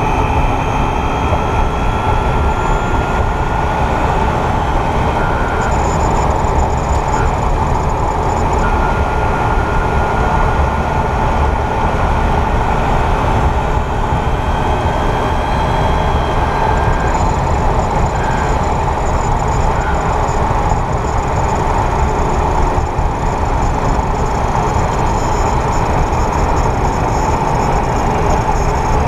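Inside a moving 2022 Kia EV6: steady road and tyre rumble with thin whining tones that come and go and shift a little in pitch. This is the mechanical whirring that the owner traces to the front drivetrain in Eco mode at about 28–30 mph.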